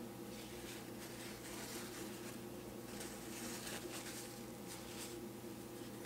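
Faint rustling and rubbing of a paper towel being folded by hand around a smartphone, over a steady low hum.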